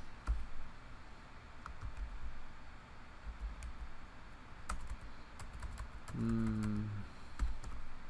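Typing on a computer keyboard: irregular keystrokes entering an address into a search field. A man's short hum about six seconds in.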